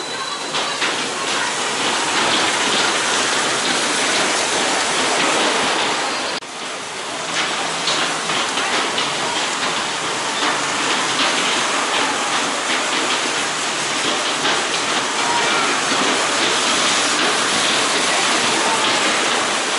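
Steady hiss of rain, with faint scattered patter of drops. The level dips briefly about six seconds in.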